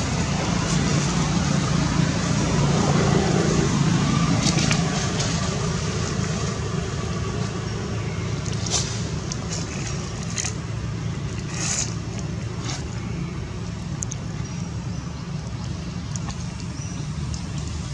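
Steady low background rumble, loudest about three seconds in and easing off after, with a few short sharp clicks scattered through the middle.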